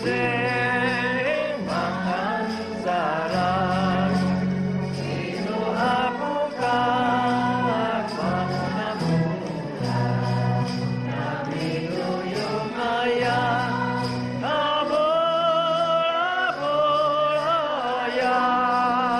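Background music: a song with sung voices holding wavering notes over a bass line and light, evenly ticking percussion.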